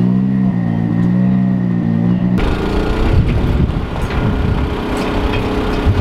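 Electronic music with a steady bass line, cut off abruptly about two and a half seconds in by the sound of a car engine running close by.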